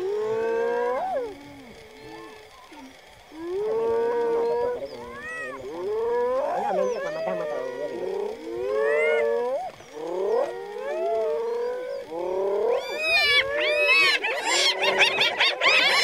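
Spotted hyenas calling: pitched yelps and whoops that rise and fall, one every second or two. In the last few seconds they build into many rapid, overlapping calls. This is the excited calling of a hyena clan contesting a kill with lions.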